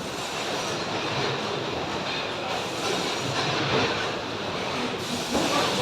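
Steady mechanical rumbling and rattling noise, with a sharp click about five seconds in.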